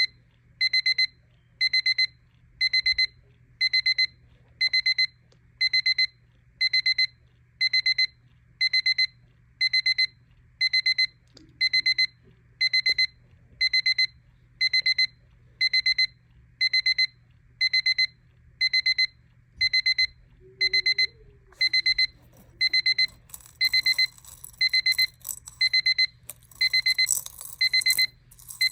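Battery travel alarm clock sounding its alarm: a high electronic beep in short pulsed bursts, about one burst a second, repeating evenly. In the last few seconds a scratchy rustling noise joins the beeping.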